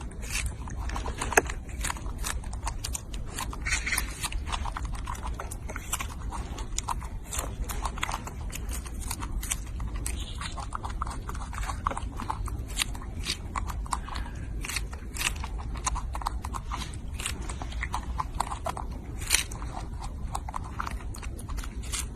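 A monkey eating close to the microphone: steady, wet chewing and crunching, with many sharp smacking clicks throughout.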